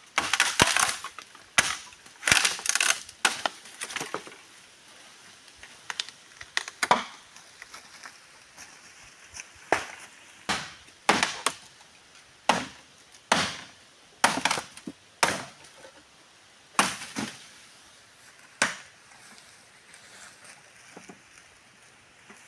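Dry bamboo and leaf litter cracking and crunching as they are handled and stepped on: a run of sharp, irregular snaps, densest in the first few seconds, then coming about once a second.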